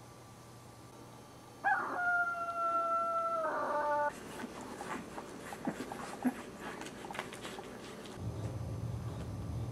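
A dog gives one long, steady whining cry of a couple of seconds, its tone shifting near the end. It is followed by scattered light clicks and rustling as the dogs move about, and a low hum comes in near the end.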